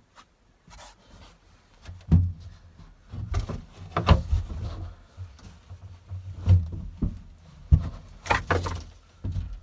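Irregular knocks and thumps, a handful of them louder, as a length of steel angle is shifted about and set against a classic Mini's floor and cross member.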